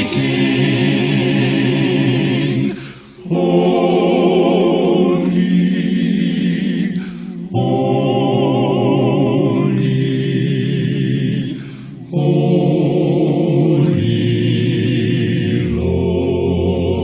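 A cappella gospel vocal quartet singing long held chords with vibrato. It breaks briefly about three, seven and twelve seconds in, between sustained phrases.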